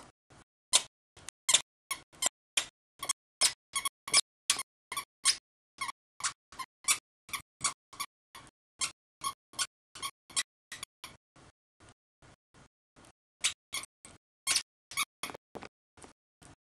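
Squeaky dog toy squeaked over and over by a miniature schnauzer puppy chewing on it: a rapid string of short, sharp squeaks, about three a second, fainter for a couple of seconds in the second half before getting loud again.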